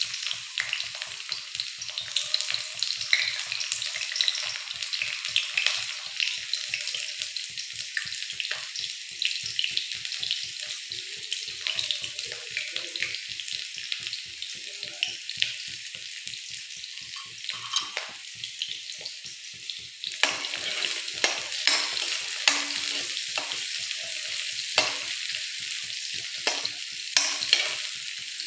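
Chopped red onions sizzling in hot oil in a kadai, a steady frying hiss. In the later part a spatula stirs them through the pan, adding clatter.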